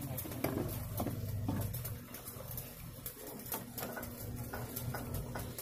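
Scattered light metal clicks and taps as a steel plate and tools are handled and fitted on an oil expeller's head. A low steady hum fades out about two seconds in.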